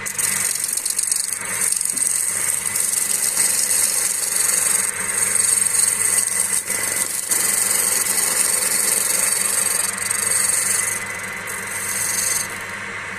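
A spanner used as a turning tool, scraping into a damp log spinning on a wood lathe: a loud, steady, hissing cut over the lathe's motor hum, easing off near the end.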